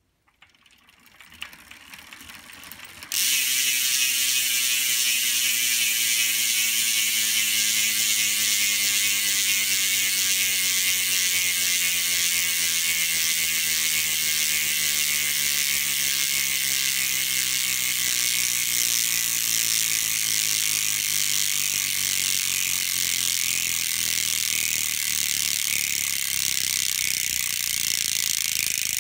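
Hope Pro 4 rear hub with an 88-notch engagement ratchet, freewheeling: the pawls click against the ring so fast that they make a loud, dense buzz. The buzz comes in abruptly about three seconds in, after a few seconds of faint clicking. Its pitch then falls slowly as the wheel coasts down.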